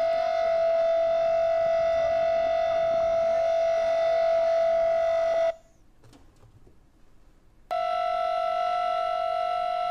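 Electronic air raid siren sounding a steady, unwavering tone with no rise or fall in pitch. The tone cuts off suddenly about five and a half seconds in and comes back at the same pitch about two seconds later.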